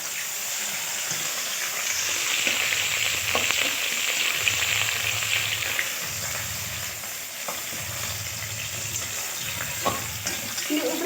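Mutton frying with onions and spices in a hot pan: a steady sizzle, louder for a few seconds early on, with occasional scraping clicks as it is stirred.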